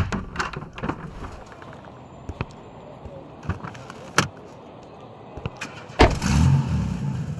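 Car sound effects: scattered light clicks and rattles, then a loud thump about six seconds in, followed by a car engine starting and running.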